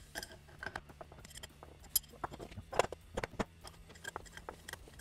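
Irregular light metallic clicks and clinks of a wrench working the bolt of a crankshaft installer tool, pulling the crankshaft into its main bearing as the two-stroke crankcase halves are drawn together.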